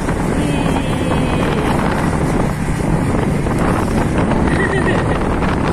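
Wind buffeting the phone's microphone: a loud, steady rumble.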